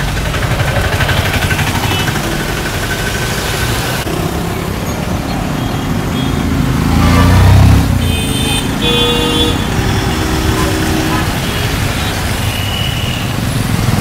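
Road traffic passing close by, engine and tyre noise, with one vehicle swelling loudest a little past the middle. A vehicle horn sounds briefly just after it.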